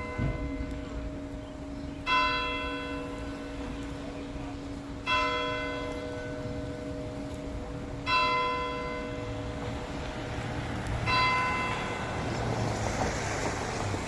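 A single courthouse tower bell tolling: four strokes about three seconds apart, each one ringing on and leaving a long hum beneath the next.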